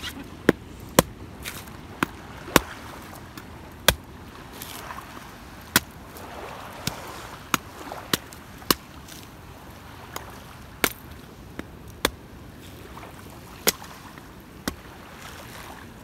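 Chopping at a coconut: about fifteen sharp strikes at uneven intervals, roughly a second apart, over a steady low background hiss.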